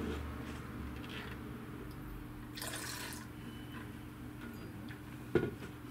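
Wine-tasting mouth sounds: a short airy slurp of red Spätburgunder drawn through the lips about two and a half seconds in, over a low steady room hum. A single sharp knock near the end.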